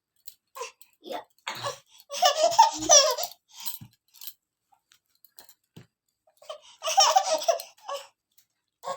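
A baby laughing and giggling in two main bursts, about one and a half seconds in and again near seven seconds, with short sounds between.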